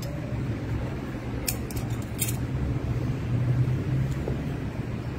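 A steady low hum, with a quick cluster of light clicks about one and a half to two and a half seconds in.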